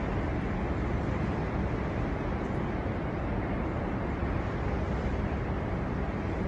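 Strong storm wind blowing steadily, a dense low rumble that holds an even level throughout.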